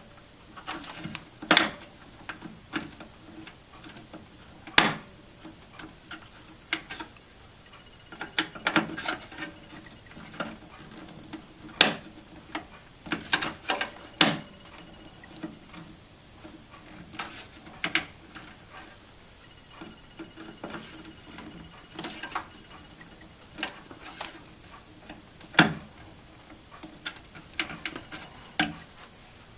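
Irregular clicks and knocks from hands working inside a desktop computer case, handling the metal and plastic parts of a drive adapter in the 5.25-inch bay.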